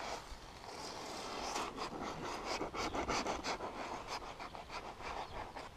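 Polyurethane gun foam (Tytan Euro-Line) being dispensed from a foam applicator gun into a seam between XPS insulation boards. It gives a steady hiss with many small crackles and spits, and the hiss fades near the end.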